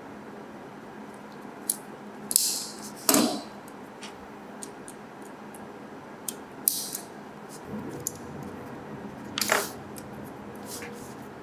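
Small plastic parts of a Tamiya Mini 4WD chassis clicking and rattling as they are handled and fitted together by hand, with a few sharper clicks now and then.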